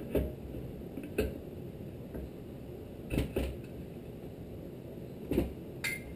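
Flywheel of a Tecumseh HSK70 small engine being set by hand onto the crankshaft and its key: about six short metal clunks and clicks at uneven intervals as it is lined up and seated.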